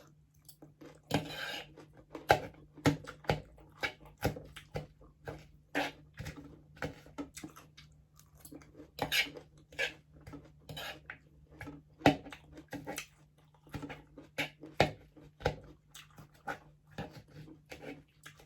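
Close-up eating sounds: crispy pata (deep-fried pork leg) being chewed, with irregular clicks and smacks and occasional clinks of cutlery on a plate.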